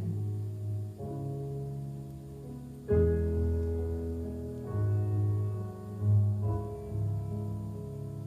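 Instrumental passage of a song: slow piano chords with deep bass notes, a new chord struck about every two seconds and left to ring out.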